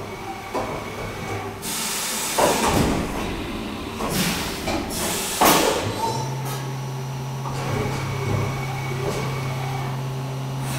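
Haas CNC mill starting its program cycle: two washes of hiss from coolant spraying inside the enclosure, then a steady low machine hum that sets in about six seconds in.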